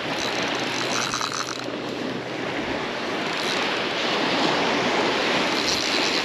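Surf washing onto the beach with wind on the microphone, and a spinning reel's mechanism clicking rapidly in short stretches near the start and again near the end while a hooked fish is being fought.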